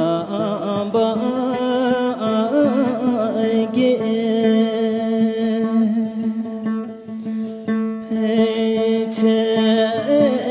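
A song: a voice singing wavering, held notes over instrumental accompaniment.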